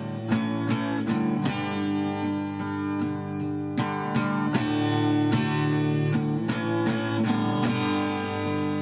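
Acoustic guitar playing the instrumental intro of a folk song, chords picked and strummed in a steady rhythm, before any singing.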